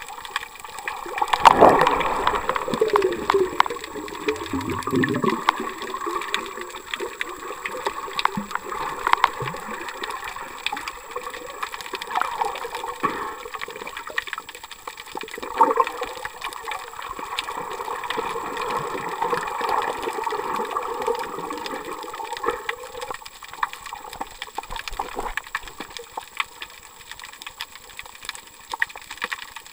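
Underwater sound through a camera held below the sea surface: continuous water sloshing and gurgling, crackling with many small clicks, loudest about two seconds in.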